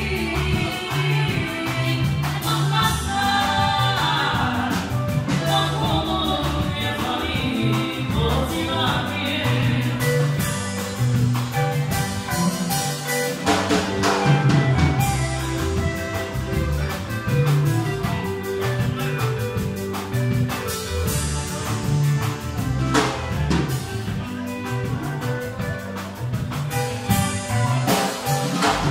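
Live band playing with amplified instruments. A woman sings over a drum kit keeping a steady beat, with bass and keyboard. Her voice stands out most in the first ten seconds or so, after which the drums and bass carry the music.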